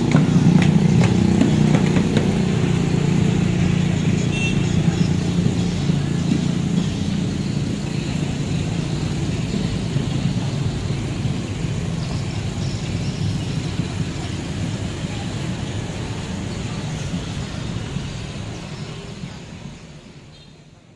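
Street traffic noise of passing vehicles, steady throughout and fading out near the end.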